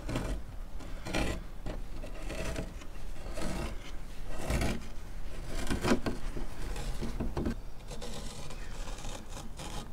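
Old glued-on radio grille cloth being peeled by hand off a wooden cabinet frame: a series of irregular rasping, scraping pulls, roughly a second apart, as the fabric comes away from the wood.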